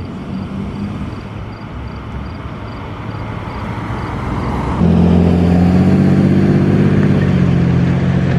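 Jeep Liberty SUV's engine running with road and cabin noise, and a faint high beep repeating about three times a second through the first half. About five seconds in it suddenly gets louder, with a stronger engine hum.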